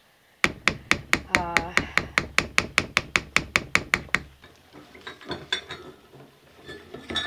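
Spatula knocking rapidly and evenly against the crock pot, about five sharp clacks a second for some four seconds, with a brief squeak partway through. After that comes fainter scraping and stirring through the thick, pudding-like soap batter.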